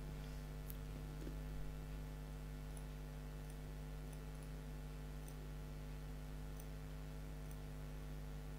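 Steady low electrical hum with a scattering of faint computer mouse clicks.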